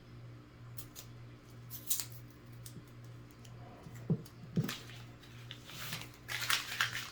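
Paper penny roll being torn open: scattered crinkles and clicks, two sharper knocks about four seconds in, and a denser burst of rustling near the end, over a steady low hum.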